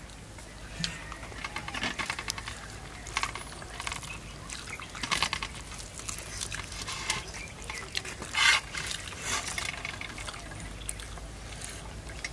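Wet eating sounds in short irregular bursts: fingers mixing rice and chicken curry on a steel plate, and chewing. The loudest burst comes about eight and a half seconds in.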